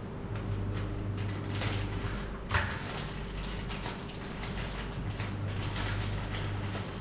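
Cooking in a pan: a utensil scraping and knocking against the pan over a steady hum, with one sharper knock about two and a half seconds in.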